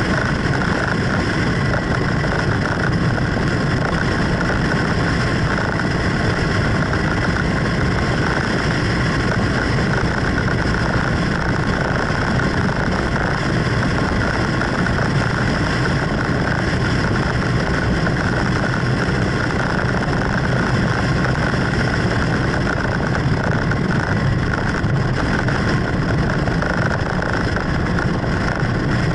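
Steady noise of a vehicle cruising at highway speed: engine drone mixed with road and wind noise, unchanging throughout.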